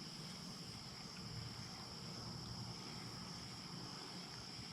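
Steady, faint high-pitched insect trilling, typical of crickets in early fall, over a low background hiss.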